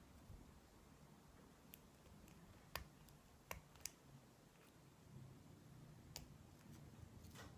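Faint, sparse clicks of a lock pick and tension tool working the pins inside a Lockwood five-pin oval cylinder. There are about half a dozen sharp clicks at irregular intervals, over soft handling noise.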